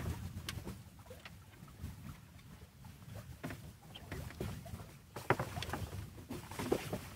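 Sailboat under way: a steady low rumble of wind and water against the hull, with scattered light clicks and knocks from lines being handled in the cockpit, coming thicker in the last couple of seconds.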